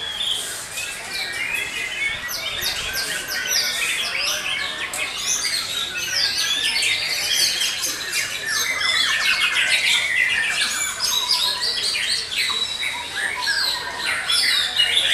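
Several caged white-rumped shamas (murai batu) singing against each other at once: a dense chorus of overlapping whistled phrases and rapid rattling notes.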